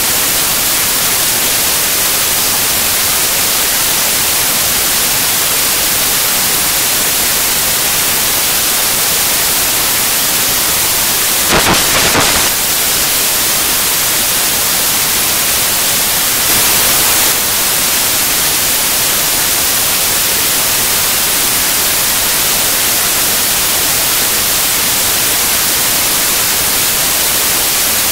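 Loud, steady static hiss with no speech under it, with a short crackle about twelve seconds in.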